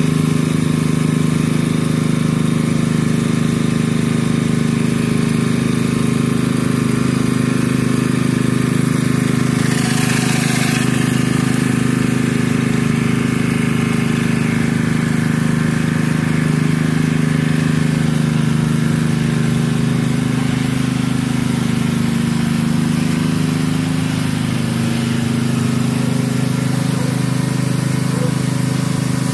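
Pressure washer engine running steadily under load, with the hiss of water jetting from a rotary flat surface cleaner onto wet pavers. A brief, sharper burst of spray hiss comes about ten seconds in.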